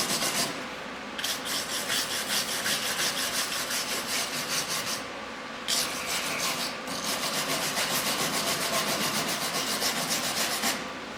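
Wire brush scrubbing a fresh weld bead on a steel Jeep windshield frame: quick back-and-forth strokes, about three a second, stopping briefly twice along the way.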